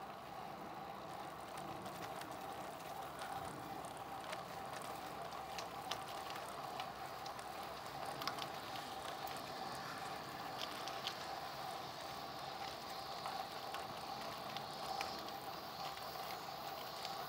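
Road bike's Continental Ultra Sport III tyres rolling on asphalt: a steady rolling noise with scattered small clicks and crackles.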